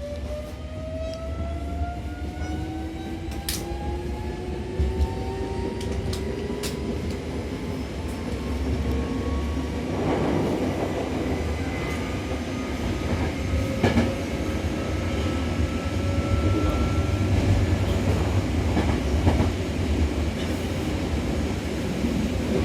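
Hankyu electric commuter train accelerating: traction motor whine rising steadily in pitch over the first ten seconds or so, then running with wheel-on-rail rumble and occasional clicks from rail joints.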